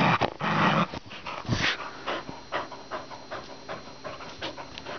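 Dog play-growling for about the first second, then panting in quick, short breaths, several a second.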